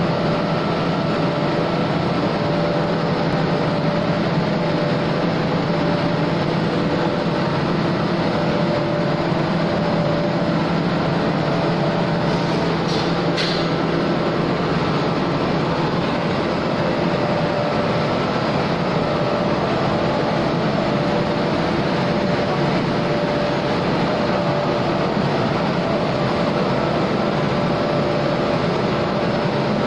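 Two-colour roll-fed plastic film printing machine running at speed: a loud, steady mechanical drone with a constant low hum as the film runs over the rollers.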